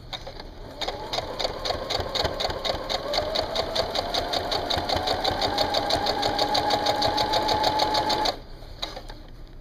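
Electric sewing machine stitching through folded towel layers. It starts about a second in: a rapid, even stitch clatter over a motor whine that rises steadily in pitch as it speeds up. It stops abruptly about eight seconds in.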